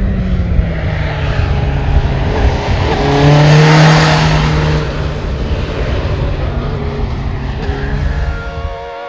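Suzuki GSX-S 750's inline-four engine with its stock exhaust, running hard on the road. It swells to its loudest and brightest about four seconds in, then holds a steadier, lower note.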